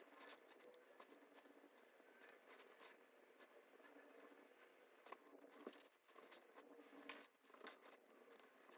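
Near silence: faint room tone with scattered soft scratches and clicks, busiest about five to seven and a half seconds in.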